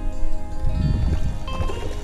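Background music: a melody of held notes over a low bass.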